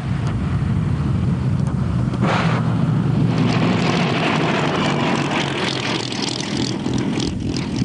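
Supermarine Spitfire's V12 piston engine running with a steady drone and occasional crackles.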